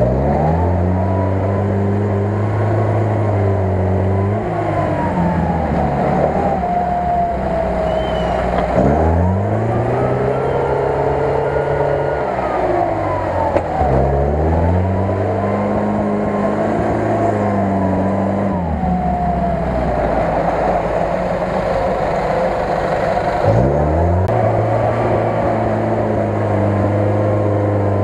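UAZ-469 jeep's engine revving up and easing off over and over, about every four to five seconds, under load as it pushes through a deep mud pit, with a high whine rising and falling along with it.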